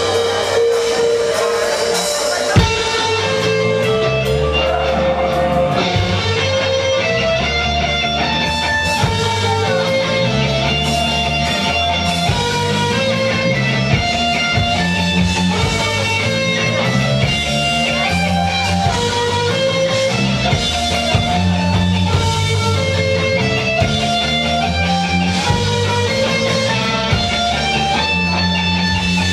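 Live metalcore band playing, with electric guitars picking stepping melodic lines over a moving bass guitar line.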